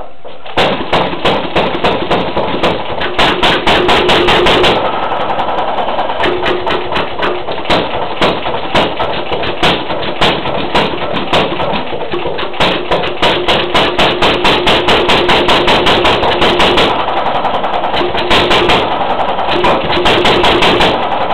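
1927 Stover CT-2 single-cylinder hit-and-miss engine starting about half a second in after its flywheels are spun by hand, then running with a rapid, uneven beat of firing strokes and clatter.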